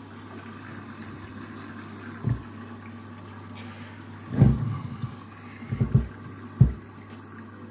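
Washing machine running with a steady low hum and water noise, typical of the drain pump, broken by a few dull thuds, the loudest about four and a half seconds in.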